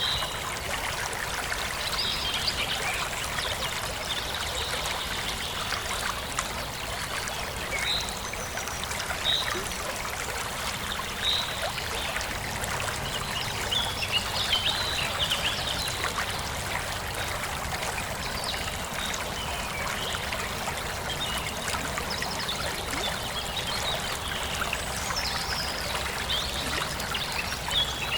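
Steady rushing noise like running water, with scattered short high chirps.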